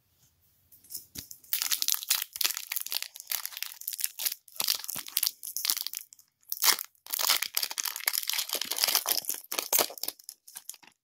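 Foil wrapper of a Pokémon trading card booster pack crinkling and tearing as it is pulled open by hand, in irregular bursts that start about a second and a half in, with a short pause midway.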